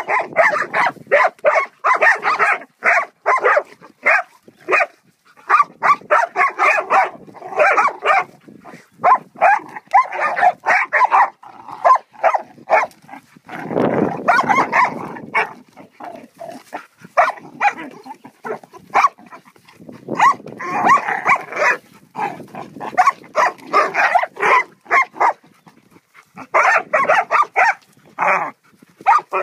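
Dogs barking at a turtle in rapid runs of short, sharp barks with brief gaps. About halfway through comes a longer, deeper stretch lasting a second or two.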